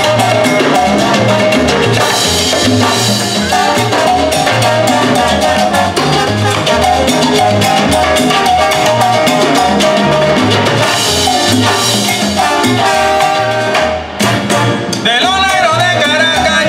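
A live salsa band playing: trombones and trumpet over congas, timbales and drum kit, with a steady bass line. The music drops out briefly about fourteen seconds in, and a male singer comes in near the end.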